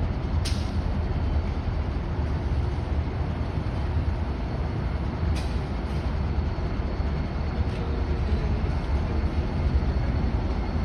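Freight train rolling by with a steady low rumble, and a few sharp metallic clicks, one about half a second in and another about five seconds later.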